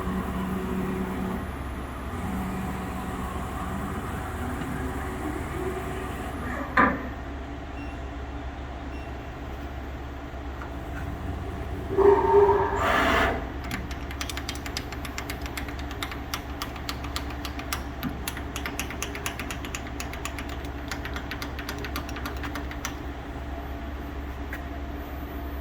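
Southwestern Industries Trak 1845SX CNC lathe running under power, a steady machine hum with a shifting tone in the first few seconds. There is a sharp clank about seven seconds in and a louder clatter around twelve seconds. After that comes a long run of rapid clicks, as from the X-axis handwheel being turned.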